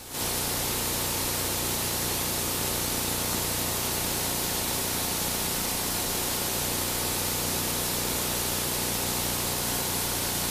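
Steady static hiss, like white noise, with a low hum underneath. It comes in abruptly at the start and holds at an even level.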